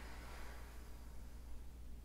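Quiet room tone: a steady low hum under faint hiss, with no distinct sound events.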